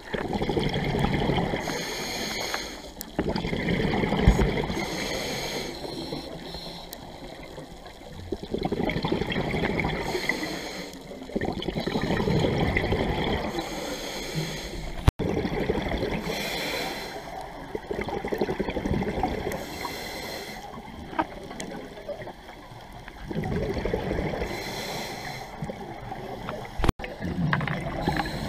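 Scuba diver breathing through a regulator underwater: hissing inhalations alternating with bubbling, gurgling exhalations every few seconds.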